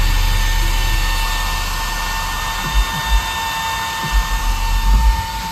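Very deep bass from two Wolfram prototype 18-inch subwoofers driven by a 12,000-watt Wolfram Arctic Wolf amplifier, pulsing several times in the second half. A steady high-pitched whine runs over it.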